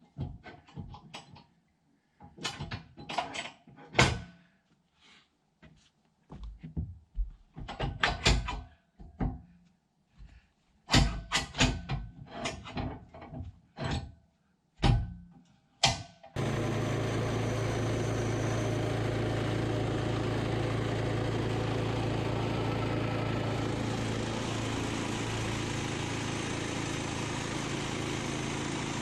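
Irregular knocks and clatters for about sixteen seconds, then an engine starts running steadily and abruptly, with a constant low hum under an even noise that continues.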